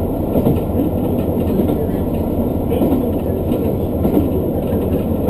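Local diesel railcar running along the line, heard on board: a steady, loud rumble of engine and wheels on the rails.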